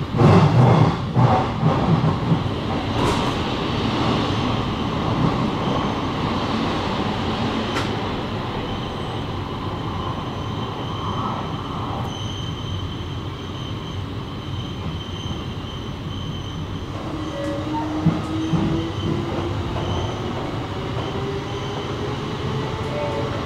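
Electric commuter train running on the rails, with heavy wheel clatter and knocks over the first few seconds and then a steady rumble with a faint high squeal. Over the last several seconds a low whine slowly rises in pitch.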